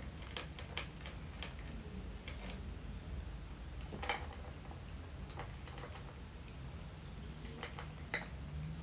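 Cat eating from a stainless-steel food bowl: irregular small clicks and clinks against the bowl, with a sharper clink about four seconds in and another near the end, over a steady low hum.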